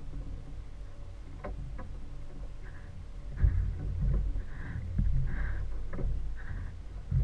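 Small boat's outboard motor idling with a low rumble, with several sharp knocks and short swishes of water sloshing at the stern.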